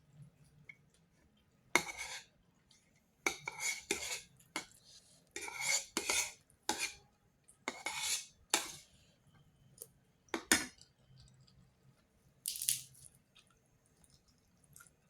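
A series of short scrapes and clinks of a dish and utensil, about a dozen at irregular intervals with quiet between them.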